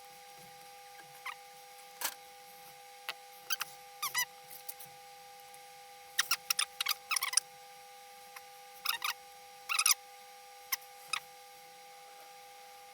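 Small clicks and squeaky scrapes of plastic parts being handled as a ribbon cable is seated inside a PS5 DualSense controller, coming in irregular bursts, busiest around the middle. A faint steady hum lies underneath.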